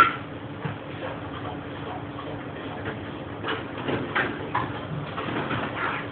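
Kitchen work sounds: scattered knocks and clatter of a cook handling things at the counter over a steady machine hum, with a sharp knock right at the start and busier clatter in the second half.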